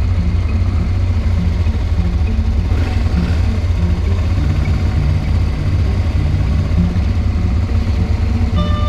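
Honda Transalp 600's V-twin engine running at low speed, a deep steady rumble heard from a camera on the bike. Music comes in near the end.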